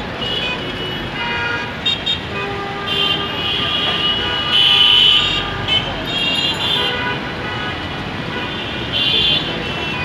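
Dense city street traffic with vehicle horns honking again and again, the longest, loudest blast about five seconds in, over the steady noise of engines.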